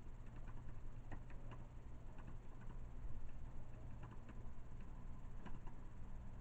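Irregular faint clicks of typing on a computer keyboard, over a steady low hum.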